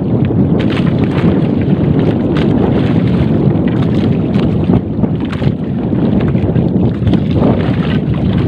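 Strong wind buffeting the microphone in a steady low rumble, over open sea around a small fishing boat.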